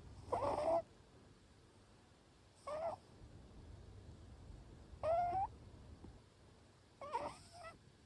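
Munchkin cat snoring in its sleep: four short, high-pitched snores at a steady breathing rhythm, about two seconds apart.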